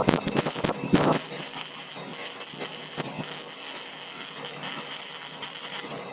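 MIG welding arc crackling and sizzling as a bead is laid at a low heat setting, loudest in the first second and going on more quietly until it stops near the end.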